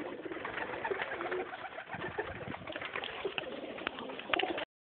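A flock of white domestic pigeons cooing over one another, with scattered clicks and rustles among them. The sound cuts off abruptly near the end.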